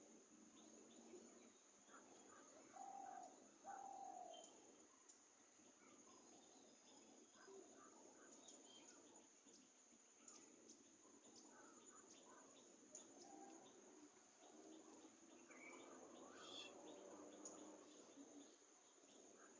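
Faint birdsong: scattered short chirps and calls, with two louder calls about three and four seconds in.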